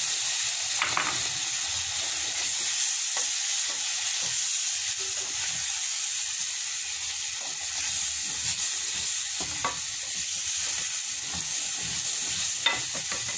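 Spice paste frying and sizzling in hot oil in a metal pot while a wooden spatula stirs and scrapes through it, with a few short knocks of the spatula against the pot. The masala is being fried down with a little added water.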